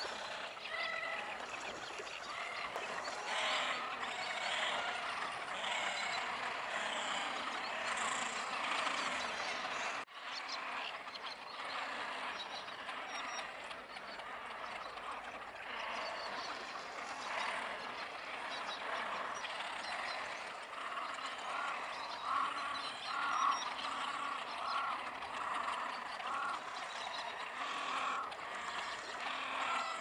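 A dense chorus of wetland animals calling from the reedbed, many calls overlapping. In the second half a run of evenly spaced notes repeats about twice a second.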